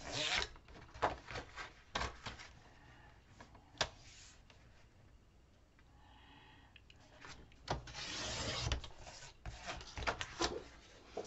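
Sliding-blade paper trimmer cutting patterned paper into strips: a short rasping cut right at the start and a longer one about eight seconds in, with small clicks and knocks of the paper and trimmer between.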